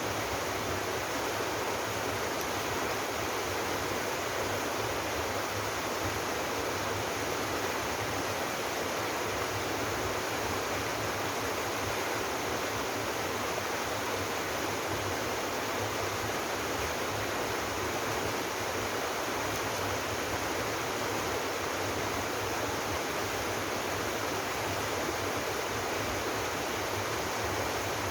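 Mountain stream waterfall pouring steadily, an even, unbroken rush of falling water.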